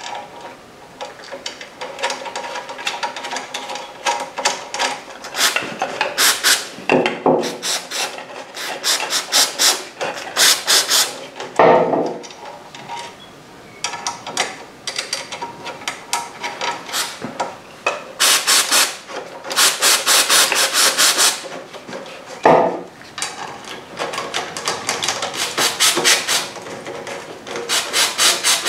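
Clogged floating-disc bobbins on a Suzuki GSX1400 front brake disc being turned one by one with a bolt and a hand driver. The sound comes in bursts of rapid, gritty creaking clicks a few seconds long, with a few heavier knocks between them. The creaking is the sign of bobbins jammed with lumpy brake dust.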